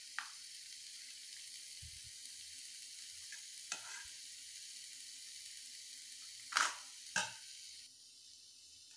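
Hot oil hissing steadily in a kadhai, heated and ready for frying fish, dropping lower about eight seconds in. Over it come four short sharp clinks of a steel spatula against a steel bowl of marinated fish, the last two loudest.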